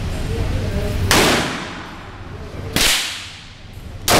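9mm handgun firing: two shots about a second and a half apart, and a third right at the end, each sharp crack followed by a short ring-out.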